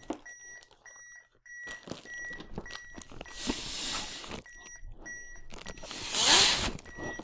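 Two rescue breaths blown into a CPR manikin's mouth, each a rushing blow lasting about a second; the second is louder. Underneath, the AED's CPR metronome beeps steadily at about two beeps a second, setting the compression pace.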